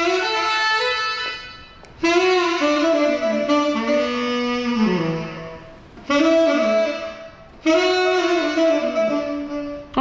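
Saxophone playing four melodic phrases, each starting sharply, with short breaks between them.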